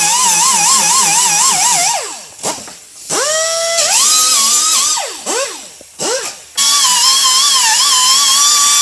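Power grinder whining as it grinds paint off a metal panel to bare it for welding, its pitch wavering under load. It spins down about two seconds in, runs up again, gives two short bursts, then runs steadily from about seven seconds in.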